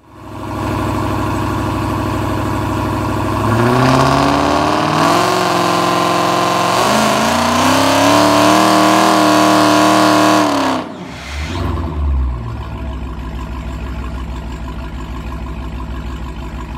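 Supercharged V8 of a Dodge Challenger Hellcat idling, then revved hard for several seconds with the pitch rising and falling, before cutting back about eleven seconds in to a rough idle with a couple of short blips.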